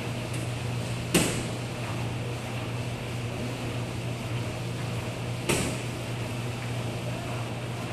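Laundromat ambience: a steady low hum of running washers and dryers, with two sharp knocks, one about a second in and another about four seconds later, such as a machine door or lid shutting.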